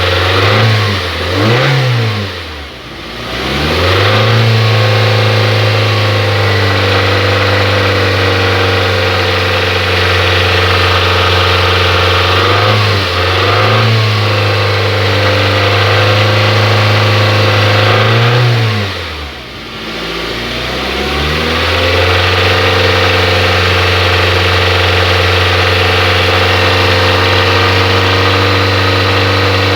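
Hyundai Tucson 2.0 16-valve four-cylinder engine idling with the throttle blipped three times, the pitch rising and falling back each time, then idling steadily. The engine is knocking ('rajando'), which the mechanic traces to worn connecting-rod bearings and a scored crankshaft after an oil starvation.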